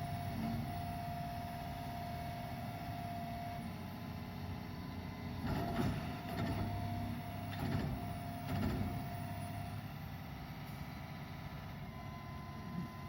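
Log loader's engine running with a steady whine, and three loud metallic clanks in the middle as the logging truck's back bunk is unhitched and handled.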